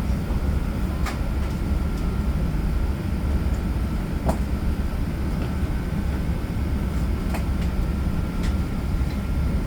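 Steady low rumble of an Airbus A380 airliner cabin, with a faint steady high whine. A few light clicks or rattles come through, about one, four, seven and eight seconds in.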